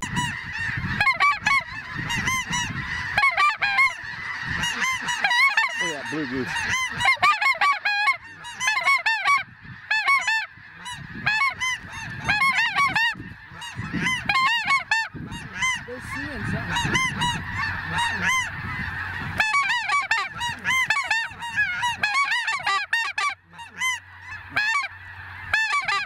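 A large flock of snow geese calling, many overlapping arching honks running on without a break.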